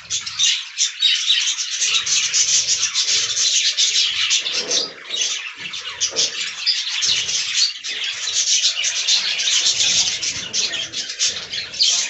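A flock of budgerigars chattering and chirping without a break, a dense high warble.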